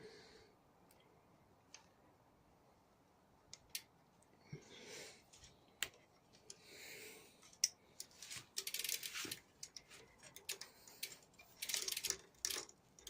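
Scattered sharp metallic clicks and light clatter of hand tools and parts being worked on a handcycle crank. There are two brief swishing hisses around the middle and a denser run of quick clicks and rattling near the end.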